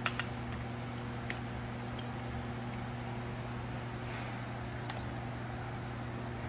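Workshop room tone: a steady low electrical hum with a few light metallic clinks of tools or small engine parts, the clearest one about five seconds in.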